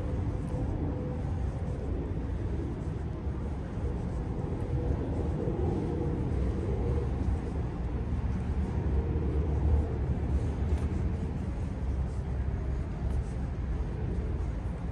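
Steady low outdoor rumble with no speech, and a faint held tone in the first half.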